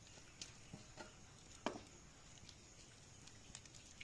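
Near silence, with a few faint soft taps and squishes, the clearest about a second and a half in, as ripe jackfruit bulbs are squeezed by hand against a perforated steel strainer.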